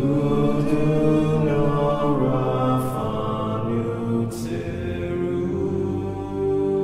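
Background music of long held sung notes over sustained tones, coming in louder right at the start.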